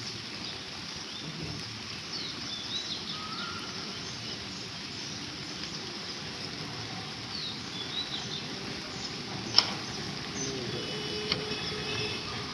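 Steady hiss of rain with scattered short, high bird chirps. There is a sharp click about two-thirds of the way in and a smaller one soon after.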